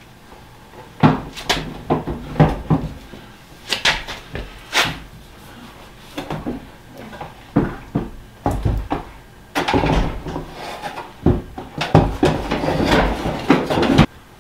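Loose steel car fender clunking, knocking and scraping against the car body as it is held up and shifted into place, a string of irregular bangs that grows busier for the last few seconds.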